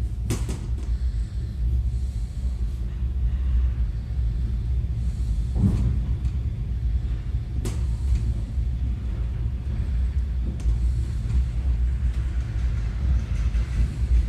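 Electric commuter train running, heard from inside the carriage: a steady low rumble with a few sharp knocks, three in all, one near the start and two around the middle.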